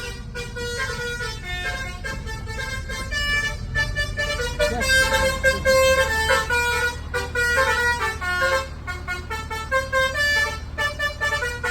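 Indonesian telolet bus horn, a set of multi-tone horns, playing a quick tune of short stepped notes, loudest about four to seven seconds in, over the low rumble of the bus engine.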